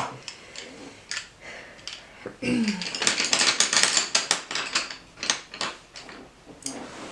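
Arteza colored pencils clicking and clattering against one another as they are picked through and handled, with a dense run of clatter about three to four and a half seconds in.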